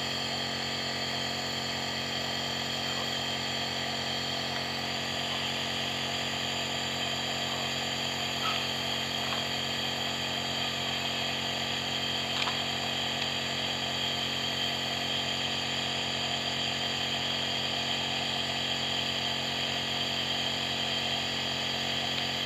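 Compressor nebulizer running steadily: a constant motor hum with a hiss of air and mist, and a couple of faint clicks about a third and halfway through.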